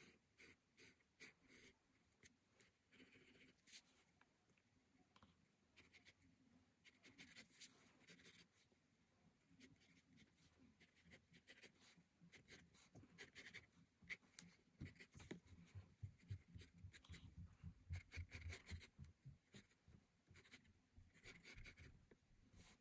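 Faint pencil scratching on sketchbook paper in many short, quick strokes as a rough outline is sketched. Over a few seconds past the middle, a run of soft low bumps is also heard.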